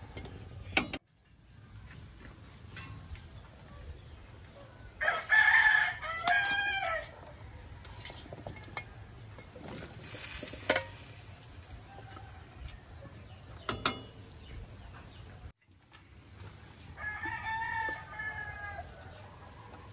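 A rooster crowing twice, first about five seconds in, which is the loudest sound, and again near the end. Between the crows come a few sharp clinks of a metal ladle and bowl against a stainless steel cooking pot.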